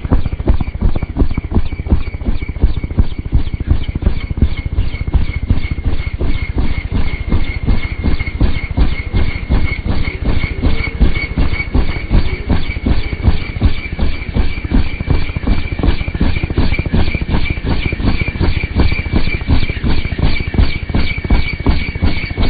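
Helicopter with a two-bladed main rotor coming in low to land: the rotor blades beat in a fast, even rhythm over a steady high turbine whine. Near the end the rotor wash blows up loose snow.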